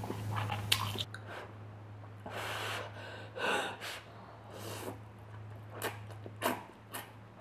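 A person eating very spicy instant noodles: short sharp breaths through the mouth against the heat, chewing, and a few small sharp clicks. A steady low hum runs underneath.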